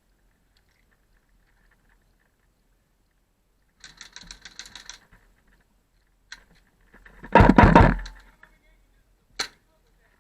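Airsoft gun firing a short, rapid burst about four seconds in. This is followed by a louder, brief knock-and-rustle close to the microphone, then a single sharp snap near the end.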